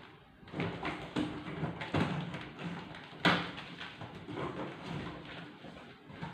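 Irregular knocks, taps and rustling as a large cardboard box and the suitcase inside it are handled and opened, with one sharp knock a little past three seconds in.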